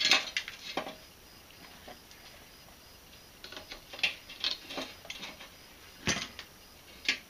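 Metal tools being handled against a steel pulley and frame: a sharp clank at the start, then scattered clinks and rattles, and a heavier knock about six seconds in.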